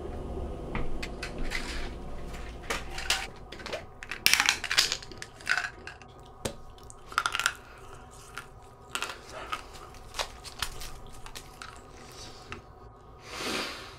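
Plastic candy wrapper crinkling and crackling in short irregular bursts as a lollipop is unwrapped, with a louder crinkle near the end.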